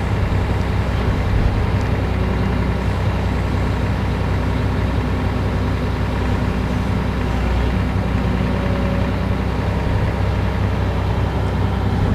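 Volvo EC460 hydraulic excavator's diesel engine droning steadily as the machine works, heard from inside the operator's cab. It runs smoothly.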